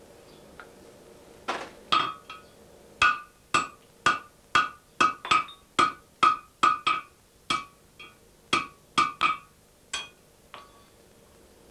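Blacksmith's hammer striking on an anvil: about twenty ringing blows, roughly two a second, that begin about a second and a half in and stop shortly before the end.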